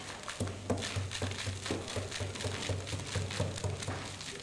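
Small hammer tapping repeatedly at the edges of damaged lime plaster on a wall, about four knocks a second starting about half a second in, knocking off the loose plaster before the patch is filled.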